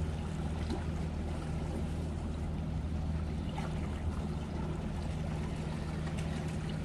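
Seawater washing and trickling among the breakwater rocks at the shoreline, over a steady low hum.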